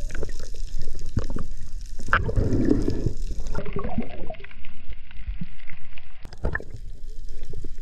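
Underwater sound through a camera housing: muffled water sloshing and gurgling, with scattered clicks and knocks as the diver handles a speared dogtooth tuna.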